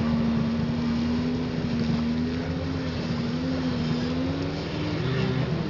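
Engine of a 1996 Kawasaki ZXi 1100 jet ski, a two-stroke triple, running under throttle over the hiss of its spray. Its pitch climbs a little about four to five seconds in, then wavers as the ski turns.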